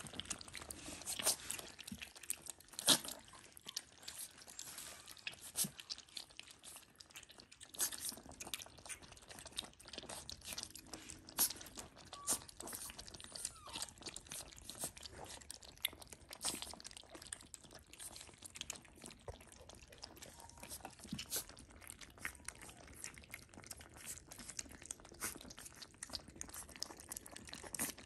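Several Shiba Inu puppies eating kibble together from one feeding pan: a busy, irregular patter of small crunches and chewing noises.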